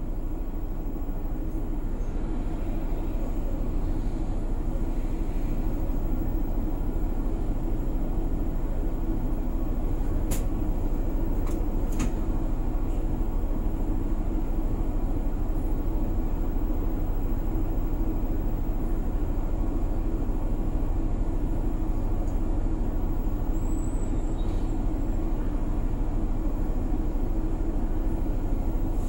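Keihan route bus running along, heard from inside the cabin: a steady hum of engine and road noise, with two sharp clicks about ten and twelve seconds in.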